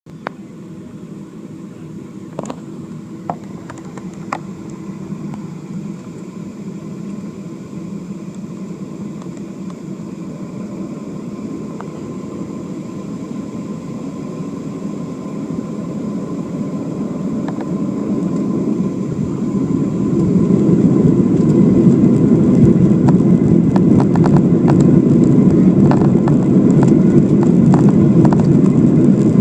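Airliner engines during a takeoff run: a steady rumble grows slowly, then rises to full takeoff power about twenty seconds in and holds loud. A few light clicks sound in the first few seconds.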